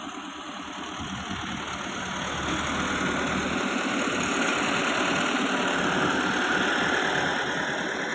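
Tractor diesel engine running as the tractor drives close past. It grows louder over the first few seconds and eases off near the end.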